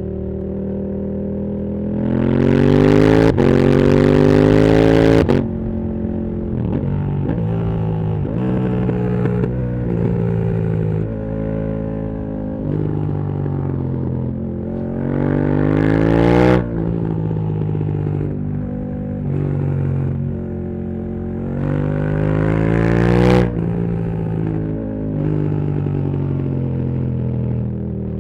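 KTM 1290 Super Duke R's V-twin engine through a full titanium Akrapovic exhaust, heard from the rider's seat while riding: three hard accelerations with rising revs, each cut off sharply when the throttle closes, with stepped gear changes and lower-revving stretches between them.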